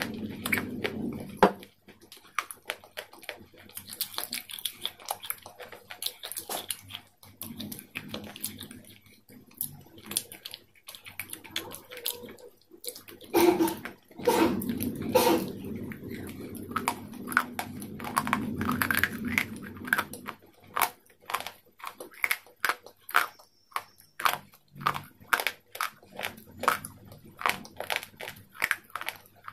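A person chewing crisp food: irregular crunches and wet mouth clicks, heavier for a few seconds around the middle.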